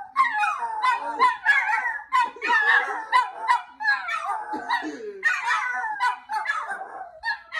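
Two Chihuahuas howling together in high, wavering howls, broken by yips and short barks.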